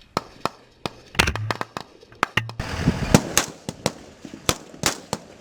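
Rifles firing single shots from several shooters at once on a firing line: about twenty sharp cracks at irregular spacing, some overlapping.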